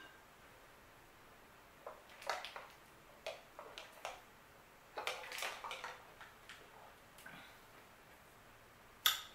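Faint handling sounds of a plastic water bottle being drunk from: scattered clicks and crinkles over a few seconds, then one sharp click near the end.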